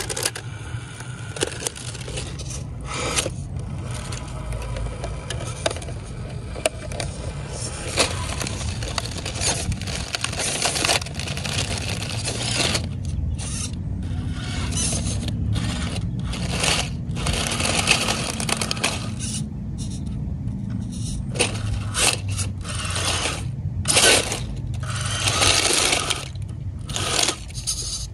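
Hobby Plus CR18P EVO Pro small-scale RC rock crawler climbing over boulders: its electric motor and geared drivetrain whirring in spurts, with its tyres scraping and clicking on the stone.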